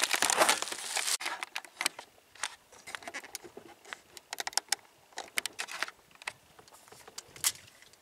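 A clear plastic tackle bag crinkling as it is handled for about the first second, then scattered light clicks and taps from handling fishing tackle while a lost hook is replaced.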